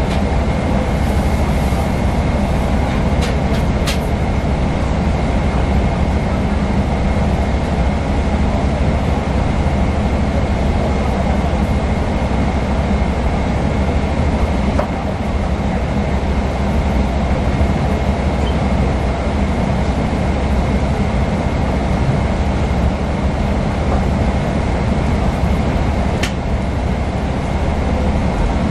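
Steady cabin noise inside a Boeing 777-300ER in flight or on the ground: a continuous low rumble of engines and airflow, with a faint steady high whine and a few faint clicks.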